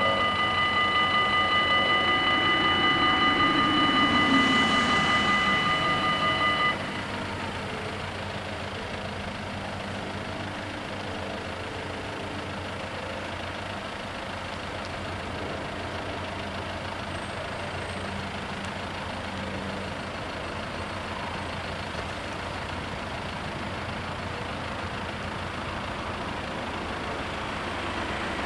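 Level-crossing warning bells ringing with a steady tone, which cut off suddenly about seven seconds in as the crossing reopens. After that, cars and a truck run and pull away across the crossing.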